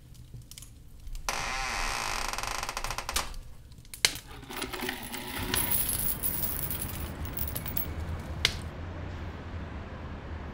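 Sound effects for a wooden treasure chest logo: a loud creaking noise, a sharp click about four seconds in, then a long metallic jingle of coins ending in another click. A steady low rumble follows near the end.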